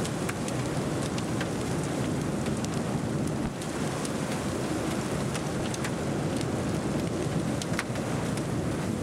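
Steady rain and wind noise from the thunderstorm, heaviest in the low rumble, with scattered sharp ticks through it.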